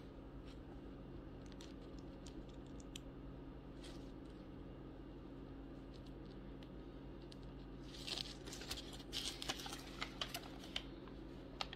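Faint clicks of small plastic Lego pieces being handled and fitted together, with a denser run of clicking and rustling from about eight seconds in.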